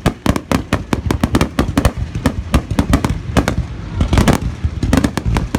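Fireworks display going off: a rapid, unbroken string of sharp bangs and crackles, several a second, with deep booms underneath.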